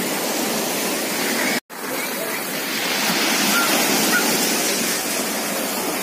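Sea surf breaking and washing up a pebble beach, a steady rushing wash. About a second and a half in the sound drops out for a moment at a cut, then the surf continues.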